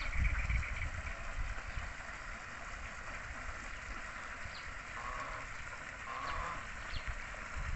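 Domestic ducks calling on a pond: a few short nasal quacks in the second half, with low rumbling near the start.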